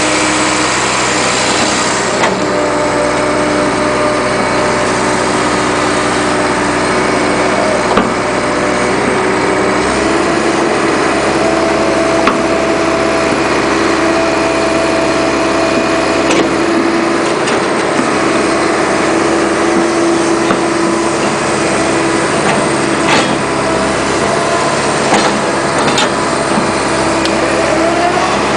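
Caterpillar 215 excavator's diesel engine running steadily, heard close up from on top of the machine as it works the boom and bucket. Its tone shifts about two seconds in and again around ten seconds in, and a few short knocks are heard.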